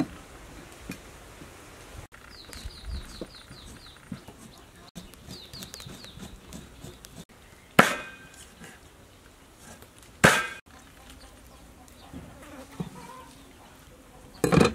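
Meat cleaver chopping raw eel on a wooden chopping board: a few loud, separate chops, two of them about two seconds apart past the middle and another near the end. Early on a rapid, high chirping trill is heard twice, each run lasting about a second.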